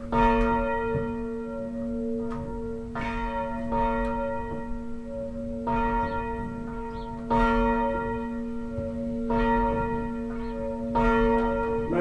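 Church bell swung by a hand-pulled rope, its clapper striking about seven times at uneven intervals, each strike ringing on into the next. The bell is still being swung up: the strokes are not yet even, striking harder and more often on the back swing because the rope pulls the bell away.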